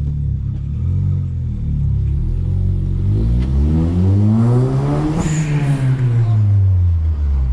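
Turbocharged VW Golf engine accelerating hard in first gear, its revs rising for about two seconds. About five seconds in, boost vents with a short hiss as the throttle lifts, and the revs fall away. This is a homemade 'turbo flutter' rigged on the bypass valve, venting at the turbo's inlet, on a short pull that did not fully build boost.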